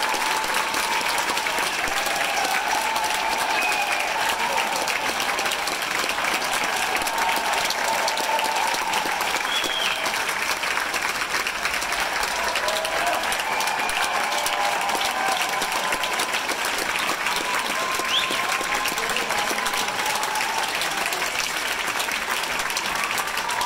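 Theatre audience applauding steadily at a curtain call, a dense continuous clapping with voices calling out above it now and then.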